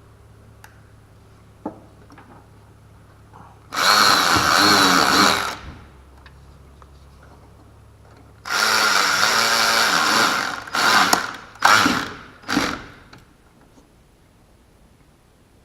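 A handheld power drill running in bursts: two runs of about two seconds each, the motor pitch wavering, then three short blips in quick succession.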